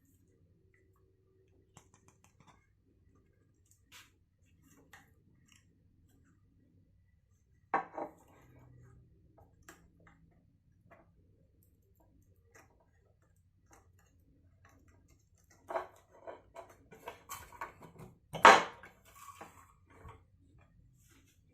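Scattered clicks, knocks and clatter of small hard objects being handled and set down. There is a sharper clatter about 8 seconds in, a busier run of knocks near the end, and the loudest knock shortly before the end.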